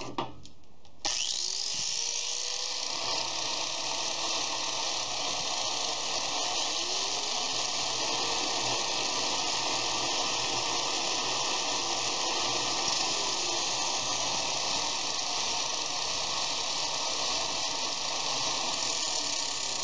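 Harbor Freight angle grinder switched on about a second in, spinning up quickly and then running steadily at free speed with no load, a continuous high motor and gear whine.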